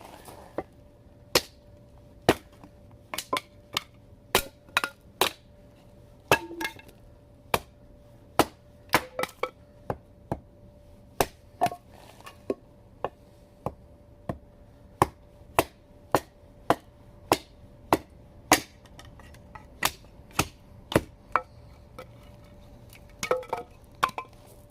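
Axe chopping firewood: a long run of sharp, separate strikes, about one to two a second, some coming in quick pairs.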